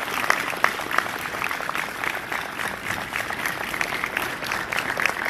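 Audience applauding: a steady mass of hand claps, with single sharp claps standing out.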